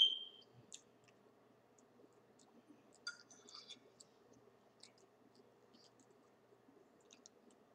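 A fork clinks on a plate with a short ring right at the start, then faint scattered clicks and scrapes of forks on plates and of eating, a small flurry of them about three seconds in.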